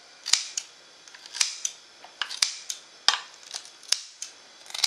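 A series of sharp, irregular clicks and taps of metal kitchen utensils (tongs and a fork) against a ceramic plate as pieces of radish kimchi are set out.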